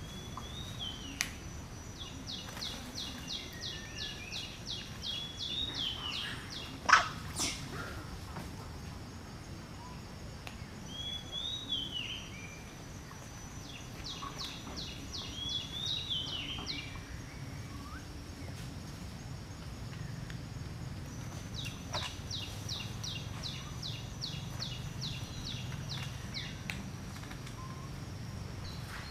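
Bird calls: three runs of quick, evenly repeated high notes, about four a second, with short curling chirps between them, over a steady high whine. A sharp click about seven seconds in is the loudest sound.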